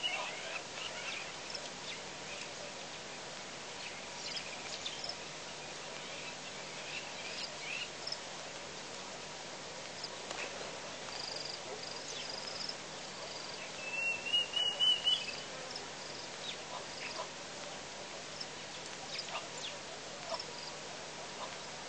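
Outdoor wildlife ambience: a steady background hiss with scattered short animal chirps, and one louder stuttering call of rapid notes, rising slightly, about two-thirds of the way through.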